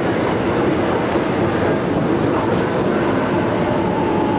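Hyundai Precision-built Korail 311000-series electric train rolling slowly along the platform as it comes in to stop, with a steady rumble of wheels on rail and a faint steady whine.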